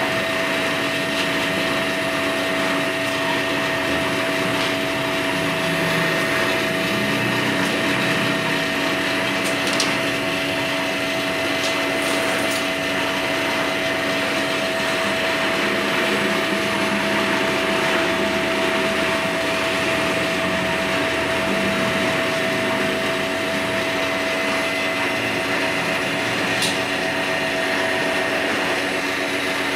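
A jumbo-size kuruk machine running steadily, its motor giving an even whine with a constant hum and a few faint clicks.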